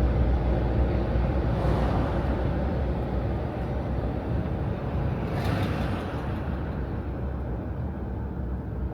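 Road and engine noise heard from inside a moving vehicle: a steady low rumble with tyre hiss, with a brief swell of hiss about five and a half seconds in.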